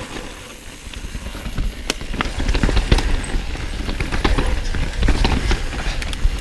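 Mountain bike rattling down a rough, rocky and rooty trail: a steady low rumble of wind and tyres with many sharp clicks and knocks as the wheels strike rocks and roots. It gets louder about two seconds in.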